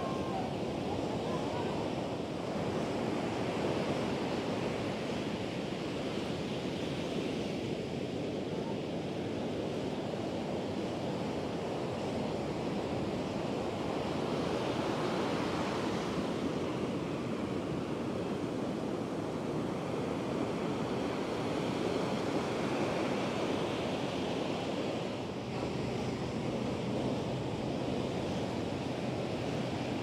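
Atlantic surf breaking and washing up a sandy beach, rising and falling in slow swells every several seconds, with wind on the microphone.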